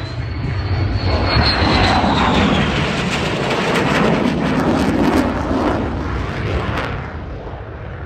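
Lockheed Martin F-35 fighter jet flying past. Its engine noise swells to a loud, dense rumble and then fades away, with a high whine that drops in pitch as it goes by.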